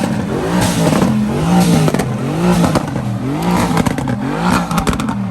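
A car engine revving up and down again and again, about one and a half times a second, over a heavy haze of tyre noise, typical of a car doing a burnout or donuts.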